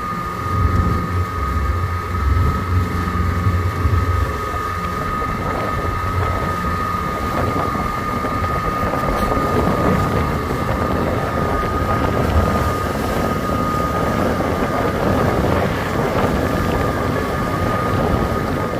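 A motorboat's engine running steadily as the boat moves along, with wind buffeting the microphone. A steady thin whine runs through it.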